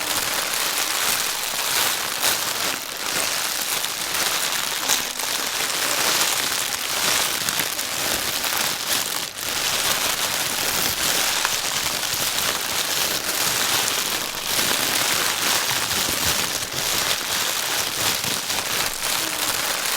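Plastic bag being crinkled and rustled without pause, a dense, steady crackling hiss.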